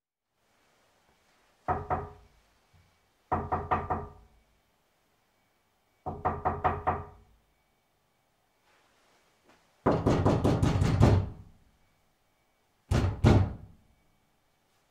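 Knocking on a door in five bouts of quick knocks separated by pauses; the fourth bout, about ten seconds in, is the longest and loudest.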